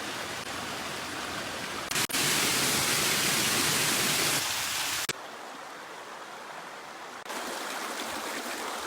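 Steady rush of running water from a brook and waterfall. It jumps abruptly louder about two seconds in and drops back about five seconds in.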